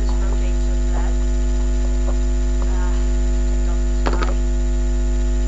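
Steady electrical mains hum, loud, with several fixed higher tones above it. About four seconds in comes a brief clatter of small clicks as plastic Lego pieces are handled close to the microphone.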